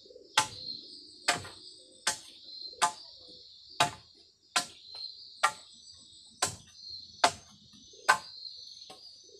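Machete chopping at something on the ground in steady strokes, about one a second. A steady insect trill runs underneath.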